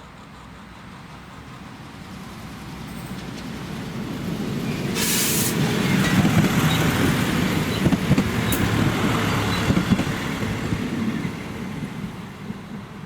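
Model train rumbling along the track, swelling to a peak in the middle and then fading away, with a short burst of hiss about five seconds in.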